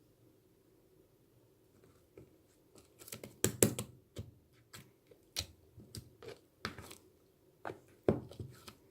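Irregular sharp clicks and knocks of small hard objects being handled, starting about three seconds in after a near-silent stretch.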